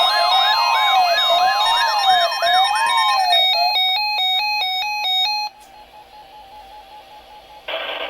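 Weather alert radio alarms: a steady high 1050 Hz warning tone under fast repeating siren-like sweeps and a slower rising-and-falling sweep, changing about three seconds in to quick alternating two-pitch beeps. The alarms drop out about five and a half seconds in, leaving faint beeping, and a broadcast voice on the radio starts near the end.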